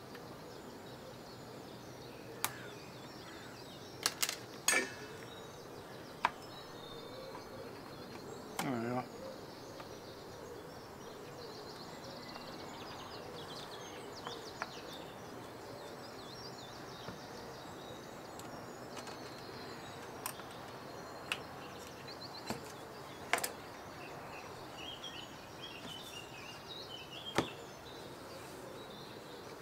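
Scattered sharp clicks and small snaps of plastic pry tools levering at the edge of a Cambridge Audio Go V2 speaker's friction-fit front grille, over a low steady hiss.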